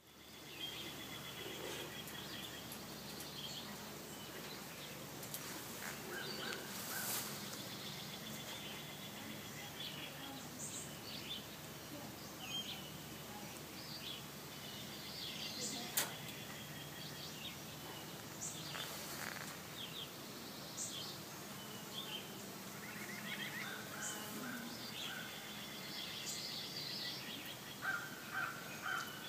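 Outdoor ambience with birds chirping and calling on and off, and a louder call repeated several times near the end. A single sharp click comes about halfway through.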